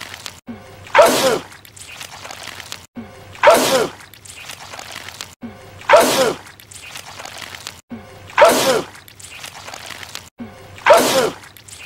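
A man's loud sneeze repeated five times, about every two and a half seconds, in a loop of the same sneeze. Each is a short pitched intake sliding down into a sharp, hissing burst.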